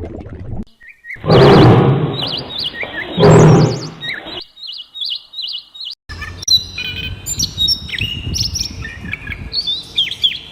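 Birds calling: two loud, harsh calls in the first four seconds with short chirps between them, then after a brief pause a dense run of quick, high chirps and tweets from several birds.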